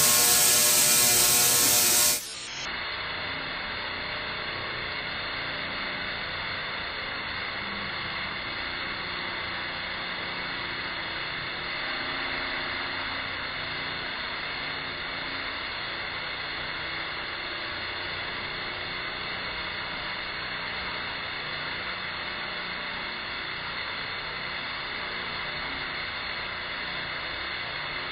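Tesla coil discharging, its spark streamers making a continuous buzzing crackle. It is louder and fuller for about the first two seconds, then runs steady and duller.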